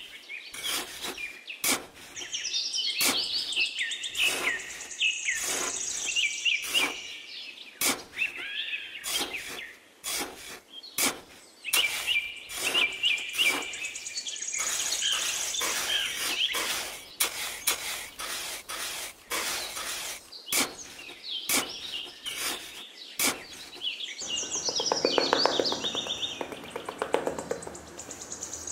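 A small hand trowel digging and scraping in damp sand in many short, irregular strokes, with a longer stretch of steady scraping near the end as the pit walls and floor are smoothed. Birds chirp throughout.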